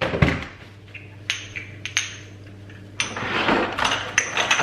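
Kitchen clatter: small spice jars and utensils knocked and set down on a countertop, a few separate sharp clicks and knocks, then a busier stretch of clinking and rummaging near the end, over a low steady hum.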